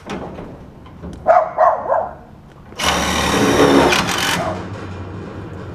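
Cordless drill driving a screw through a steel post extension into a Colorbond fence post: one burst of motor whine about a second and a half long, starting near the middle. A few short high yelps come a little earlier.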